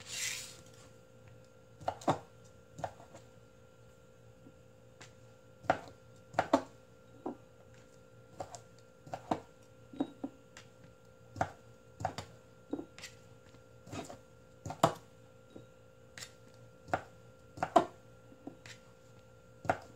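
Kitchen knife slicing Vienna sausages into thin diagonal pieces on a cutting board: irregular knocks of the blade against the board, roughly one every second, with a short hiss at the very start.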